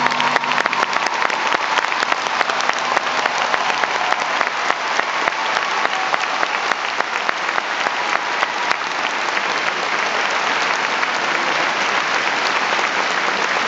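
Large arena audience applauding steadily, a dense mass of hand claps, as the last of the routine's music fades out at the start.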